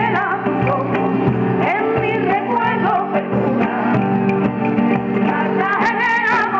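Live folk music: a group of women singing together over strummed acoustic guitars, with light hand percussion.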